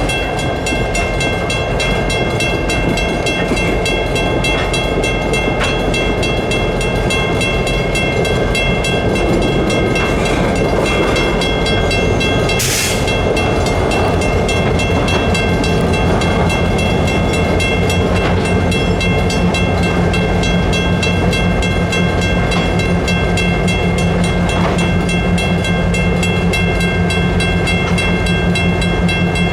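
Diesel road-switcher locomotives running with a steady low engine drone and a few thin steady high tones over it. A single brief sharp noise comes about twelve seconds in, and the engine drone grows fuller from about sixteen seconds in.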